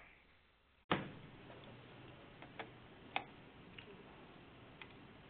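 A sharp click about a second in opens the steady hiss of a conference-call audio line. A handful of faint, irregular computer mouse clicks follow over the hiss.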